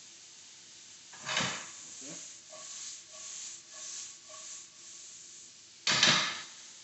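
A skillet of chicken, peppers and onions sizzling as it is shaken over a portable gas burner and stirred with a metal spatula. A loud noisy burst comes about a second in, then four or so evenly spaced scraping swells, then another loud burst that starts suddenly near the end.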